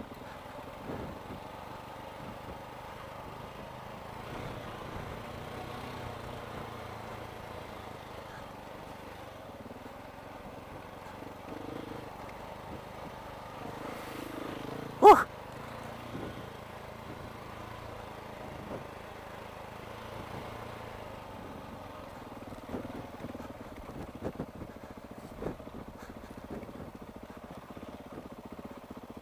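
KTM 690's single-cylinder engine running steadily under way, fairly quiet and even, with a few light knocks in the later part.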